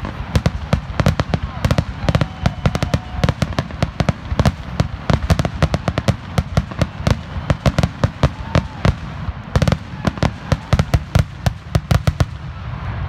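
Aerial fireworks display: a rapid, dense run of shell bursts and crackling reports that stops about twelve seconds in.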